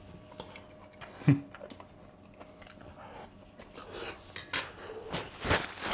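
A metal fork clinking and scraping against a stainless steel frying pan as food is picked up from it. There are a few separate sharp clinks, the loudest near the end.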